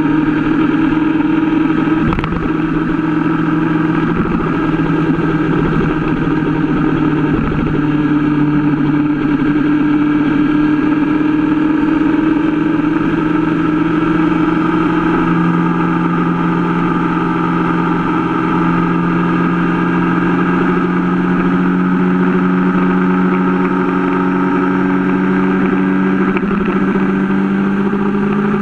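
Sport motorcycle engine running steadily at motorway cruising speed under a constant rush of wind noise. Its pitch shifts about halfway through, then rises slowly over the last several seconds as the bike speeds up.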